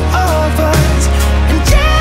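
Background song with a steady beat, deep bass and a melody line.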